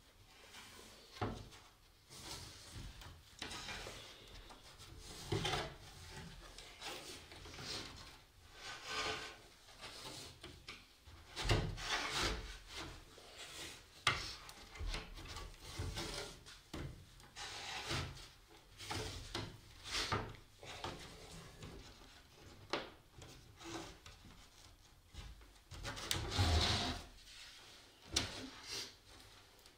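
Wood rubbing and sliding against wood as guitar soundboard halves and the wooden bars of a cord-tied gluing jig are pressed and adjusted by hand on a workbench. Irregular scraping strokes with scattered knocks of wood on wood.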